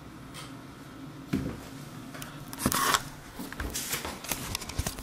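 Handling noise from a hand working the camera up close: a thump about a second in, a louder rustle near the middle, then a run of sharp clicks.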